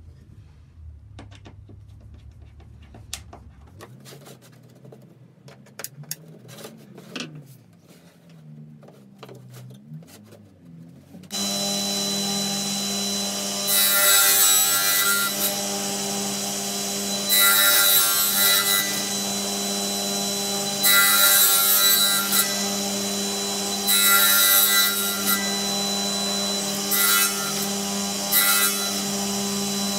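Light knocks and clicks of wood being handled, then a table saw starts suddenly about eleven seconds in and runs steadily. Its noise rises in about six cutting passes, each one to two seconds long and the last two brief, as the corners of a wooden block are trimmed off on a crosscut sled.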